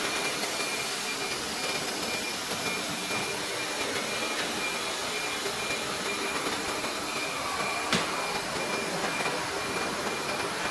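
1325 ATC CNC router running steadily: an even hiss with a thin, steady high whine, and a single sharp click about eight seconds in.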